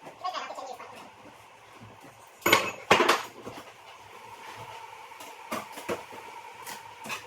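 Clatter of hard objects being handled: a few light knocks near the start, then two loud knocks close together about two and a half seconds in, with a faint steady high hum in the later part.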